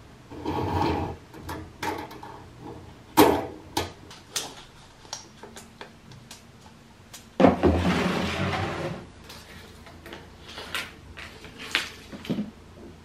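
Steel tape measure being handled while measuring a wooden shelf and the floor: scattered sharp clicks and knocks of the tape and case against the shelving, with rubbing and rustling. A louder rasping rustle comes about seven and a half seconds in and lasts about a second and a half.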